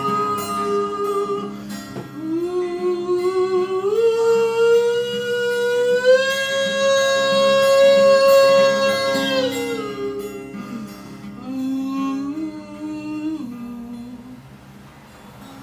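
A man singing a long wordless vocal line over an acoustic guitar. His voice slides up, holds a high note for a few seconds, then falls away into lower phrases, and the sound grows quieter near the end.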